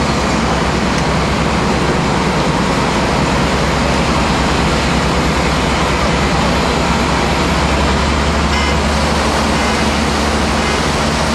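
Fire apparatus diesel engines running steadily at a working fire scene, a constant low drone under a dense, steady rushing noise. The low drone grows a little stronger about seven seconds in.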